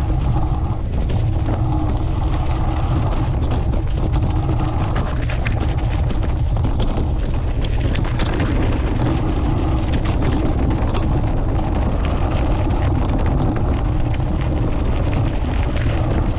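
Wind buffeting the microphone in a heavy, steady low rumble, over the crunch and rattle of a mountain bike rolling along a loose stony dirt road, with many small clicks and knocks from the stones and the bike.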